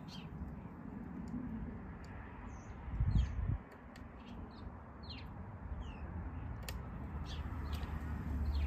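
Small birds chirping in short, repeated calls, over a low rumble that swells briefly about three seconds in.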